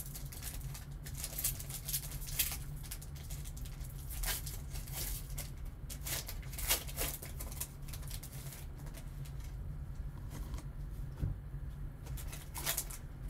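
Foil wrapper of a trading-card pack crinkling and tearing as gloved hands peel it open, in irregular crackles and rustles, over a steady low hum.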